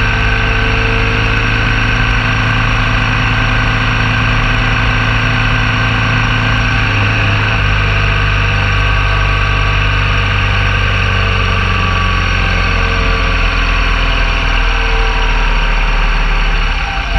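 BMW R1200 GS Adventure motorcycle's boxer-twin engine running steadily while riding. Its note shifts about seven seconds in.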